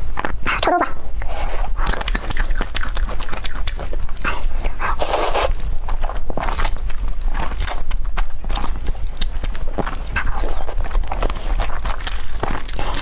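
Noodles being eaten close to the microphone: slurping and chewing with scattered small clicks, over a steady low hum. There is a short rising pitched cry about a second in.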